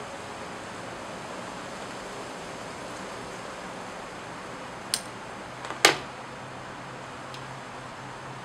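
Two sharp snips of small fly-tying scissors trimming the fly at the hook, about a second apart, the second one louder, over a steady background hiss.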